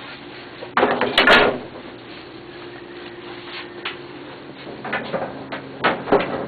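Dry cured tobacco leaves crackling and rustling as they are handled and pulled apart, loudest in a burst about a second in, with several shorter bursts near the end. A faint steady hum runs underneath.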